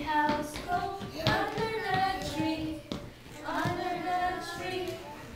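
Young children singing a song together with a woman's voice, in held sing-song notes, with a couple of short sharp taps.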